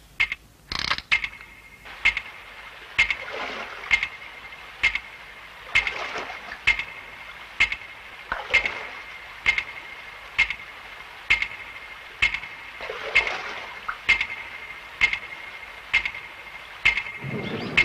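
Clockwork timer of a firework time bomb ticking steadily, a sharp tick with a ringing metallic tone a little under once a second: the countdown to detonation is running. Hissing swells rise and fade behind the ticking several times.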